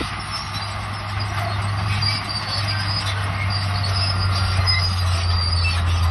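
Crawler bulldozer working: a steady low diesel engine drone with high metallic squeals from its steel tracks.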